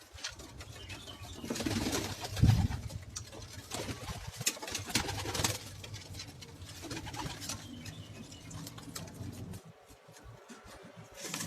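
Domestic pigeons cooing in a low repeating hum, with scattered sharp rustles and flaps; the cooing dies away about two seconds before the end.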